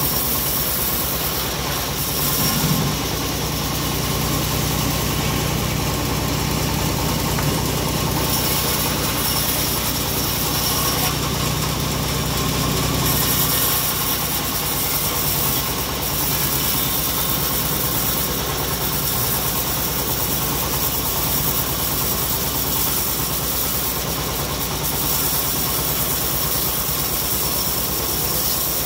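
Homemade engine-driven band saw running steadily as a mahogany log is pushed through the blade, the engine's low hum strongest for the first half and easing about halfway through.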